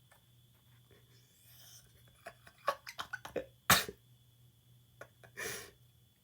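Hardwired smoke detector's piezo sounder giving a faint, steady high-pitched tone: its weak 'dying' sound, which keeps going for minutes. Over it come a quick run of clicks and then two loud breathy bursts, one about three and a half seconds in and one near the end.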